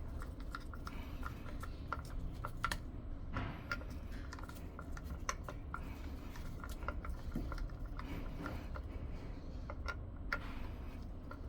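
Light, irregular clicks and taps of a screwdriver and small smart-lock parts being handled and fastened.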